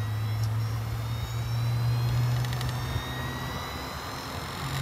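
Hard drive spindle motor spinning a lawnmower blade fixed to the drive, as it spins up: a steady low hum with a thin whine that slowly rises in pitch.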